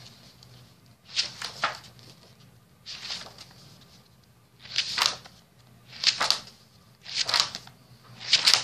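Paper pages of a spiral-bound sketchbook being turned one after another: a short papery swish about every second, six in all.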